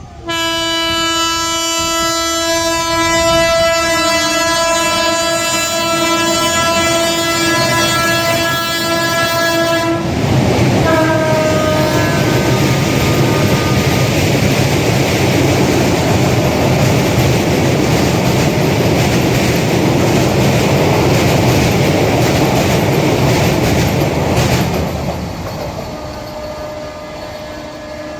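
Indian Railways electric train sounding a long, steady horn for about ten seconds as it approaches. It then passes at speed with a loud rush and rattle of wheels on rails, and a second, shorter horn note just as it goes by. The sound fades away near the end.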